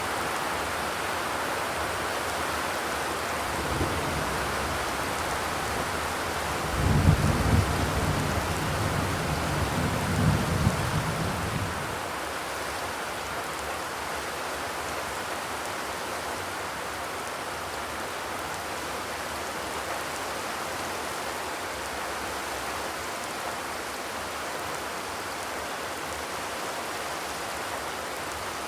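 Steady rain falling on a zinc roof, an even hiss of drops. About seven seconds in, a low rumble rises under the rain for about five seconds and then fades.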